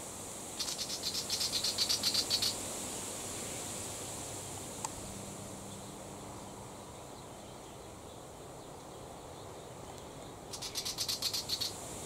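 Willie wagtail's scolding chatter: two bouts of rapid, harsh ticking at about ten notes a second, one near the start lasting about two seconds and a shorter one near the end, each growing louder.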